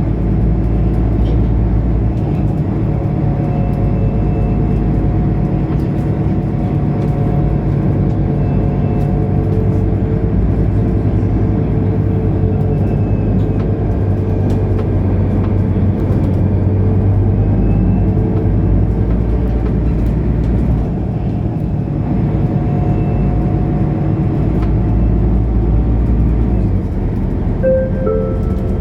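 The diesel engine of a Mercedes-Benz O530 Citaro Facelift Ü bus runs steadily under way, heard from inside the bus, its pitch shifting slightly as the bus drives. Near the end a short two-note falling gong sounds, the chime that comes before the next-stop announcement.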